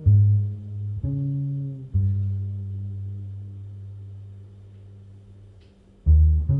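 Slow jazz ballad for piano and double bass, the plucked double bass carrying the line in sparse low notes. One note is left ringing and fading for about four seconds before new notes come in near the end.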